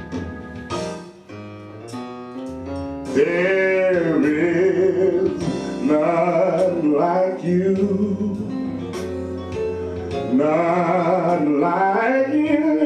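A man singing solo into a microphone over instrumental accompaniment. His voice comes in about three seconds in, sliding and bending through long held notes.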